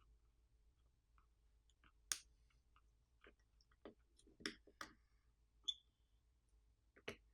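Scattered small clicks and taps of hand tools and tablet parts during disassembly, the sharpest about two seconds in and a cluster around four and a half seconds, with one brief higher ping about two seconds later.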